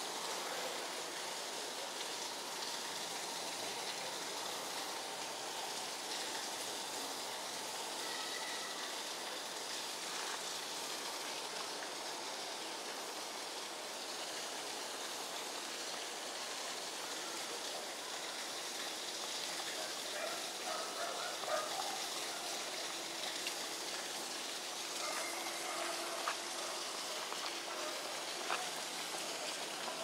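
A steady, even rushing hiss with a few faint short calls or chirps over it.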